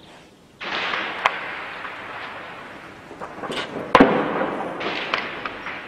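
Weapons fire. A sudden burst about half a second in trails off over a few seconds, with a sharp crack soon after. About four seconds in comes a louder crack and then another burst, each dying away in a long echo.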